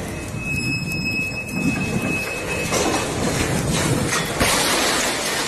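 A high, steady squeal held for about two and a half seconds over rumbling noise, then rumbling noise alone.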